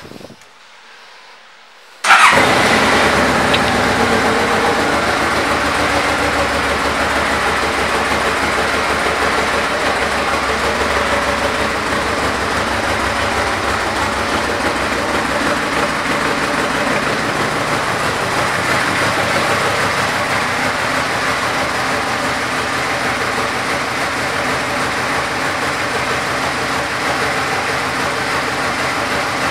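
Yamaha Royal Star Venture's 1294 cc V-four engine running steadily at idle. It comes in suddenly about two seconds in.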